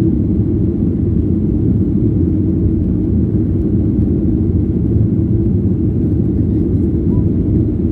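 Steady, deep cabin noise of a Boeing 737-800 climbing after takeoff, heard inside the cabin at a window seat. Its CFM56-7B jet engines are at climb power, and air is rushing past the fuselage.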